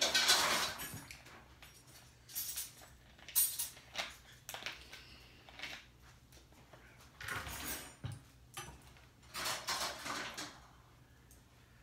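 Mealtime table sounds: forks clinking and scraping on plates, and a plastic water bottle crinkling as it is handled and capped. The loudest rustle comes at the very start, with shorter clinks and rustles scattered after it.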